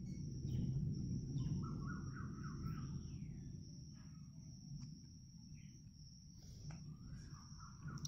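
Common myna giving short chirping calls, with a run of quick notes about two seconds in, a rising-and-falling note a moment later and another short burst near the end. Under them a steady low rumble, loudest at first, and a constant thin high whine.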